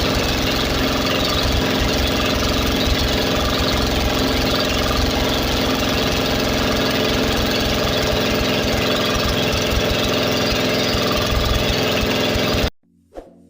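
Engine running steadily at a constant speed, with an even hum and rattle. It cuts off abruptly near the end, followed by a brief faint click.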